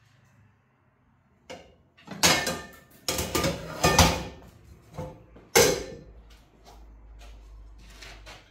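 Household objects being handled: a run of sharp knocks, clatters and scrapes, loudest from about two to six seconds in, followed by a faint low rumble.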